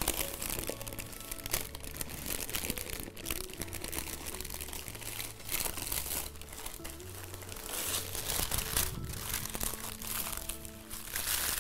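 Baking parchment crinkling and rustling in irregular crackles as it is wrapped and rolled tightly around a stuffed turkey roll by hand.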